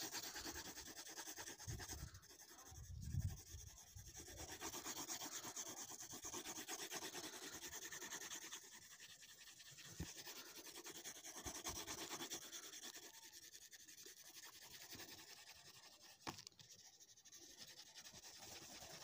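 Coloured pencil rubbing on paper in fast back-and-forth shading strokes, with a few short pauses and a soft thump about three seconds in.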